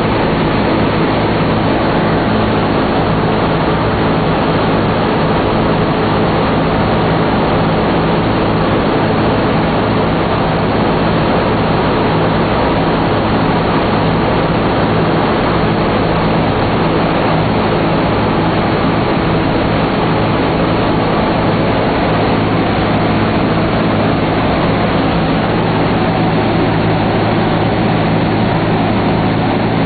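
The four nine-cylinder Wright R-1820 Cyclone radial engines of a B-17 Flying Fortress running steadily in level flight, a loud even drone with the rush of air, heard from inside the ball turret.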